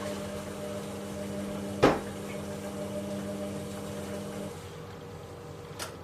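Logik L612WM13 front-loading washing machine tumbling a wet load in its wash: the drum motor hums steadily and stops about four and a half seconds in as the drum pauses between turns. A single sharp knock about two seconds in is the loudest sound, with a fainter click near the end.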